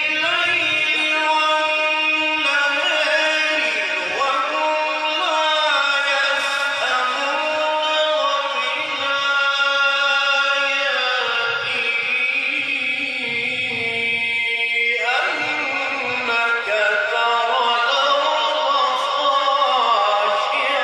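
A man reciting the Qur'an in the melodic mujawwad style, drawing out long vowels in ornamented phrases that wind up and down in pitch.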